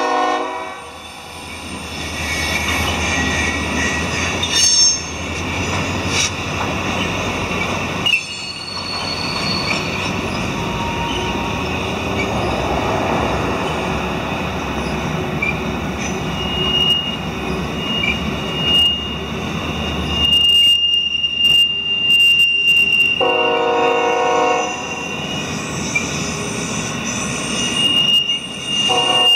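A freight train's cars rolling past, moving from empty coal hoppers to new FreightCar America well cars: a steady rumble of steel wheels on rail, with a thin high-pitched wheel squeal held through much of the second half. A brief lower pitched chord sounds about three quarters of the way through.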